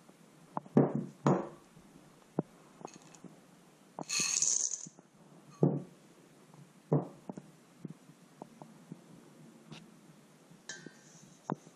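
Glass prep bowls knocking against a stainless steel mixing bowl and being set down on the counter, and dark chocolate chips poured rattling into the steel bowl about four seconds in.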